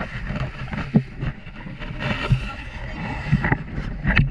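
Boat ride on open water: continuous rushing wind-and-water noise with a low rumble, broken by irregular knocks and thumps.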